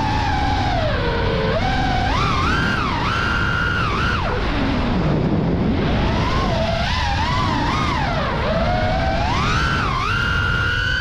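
Five-inch FPV quadcopter's brushless motors whining, the pitch rising and falling with the throttle; the whine drops low about four seconds in, then climbs back up.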